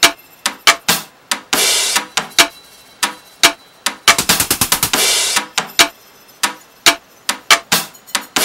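Background music led by a drum kit: sharp hits with cymbal crashes, and a fast drum roll a little after four seconds in.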